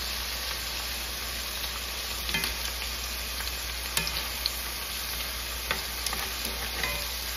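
Lamb chops sizzling steadily in hot oil in a cast-iron skillet, with a few light clicks of metal tongs against the meat and pan as the chops are turned.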